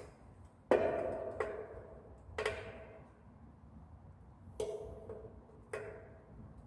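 Hand tool striking a metal scooter engine part: five sharp metallic clinks, each ringing briefly. The first, about a second in, is the loudest, and the rest come irregularly over the next five seconds.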